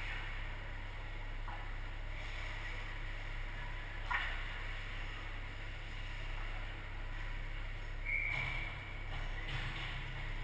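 Ice hockey rink ambience: a steady low hum under the distant sounds of play at the far end of the ice. A single sharp knock comes about four seconds in, and a short high tone about eight seconds in.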